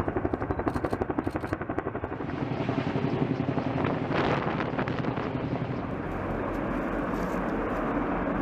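Helicopter rotor beating in a fast, even rhythm that smooths into a steadier whine and rush after about two seconds.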